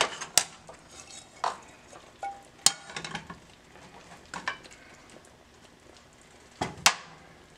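Food being stirred in a wok with a spatula over a faint sizzle, with a few sharp clacks of the utensil against the pan, the loudest near the end.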